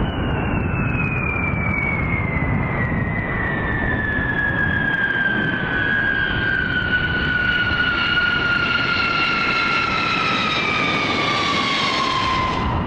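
Jet engines of a B-52 Stratofortress on landing: a loud whine that falls slowly and steadily in pitch as the bomber comes in and passes, over a steady rushing jet noise.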